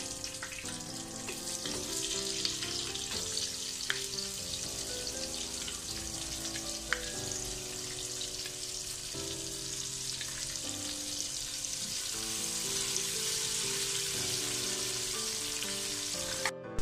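Sliced onions sizzling steadily as they fry in hot oil with whole spices in a pot.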